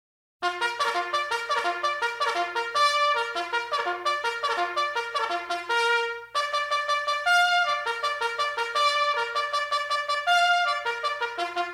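A trumpet playing a fast run of short notes, starting about half a second in, with a brief pause a little past the middle before the run goes on.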